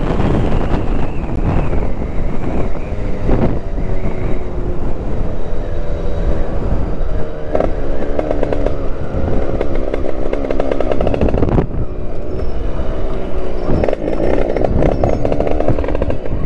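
80cc Italkit two-stroke motorbike engine (Derbi bottom end) running under way, its pitch rising and falling as the rider works the throttle, over heavy wind noise on the microphone.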